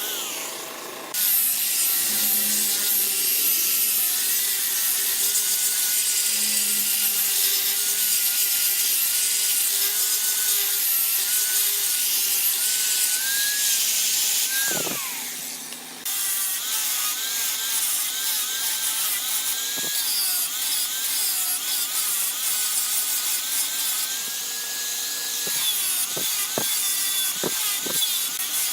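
Wood being cut on a lathe: a turning tool scraping the spinning wood, a steady hissing scrape with a wavering whine. It breaks off and starts again twice, and a run of sharp clicks comes near the end.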